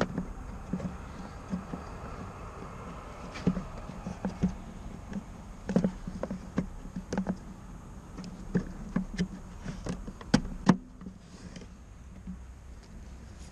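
Irregular small clicks and knocks of hands working at a wiring-harness connector, trying to unlatch and pull it free. The loudest knock comes about ten seconds in.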